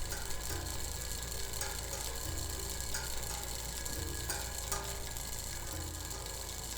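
Clockwork mechanism ticking and whirring steadily while it sits on an upturned aluminium cable spool that acts as a resonator, giving a dense pattering like rain on a tin roof.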